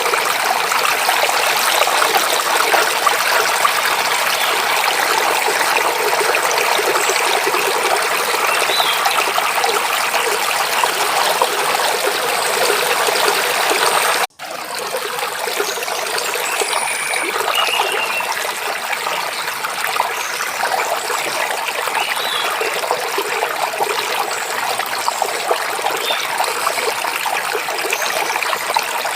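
Forest stream babbling and trickling steadily over rocks, with a few faint bird chirps. The water sound cuts out for an instant about halfway through and comes back slightly quieter.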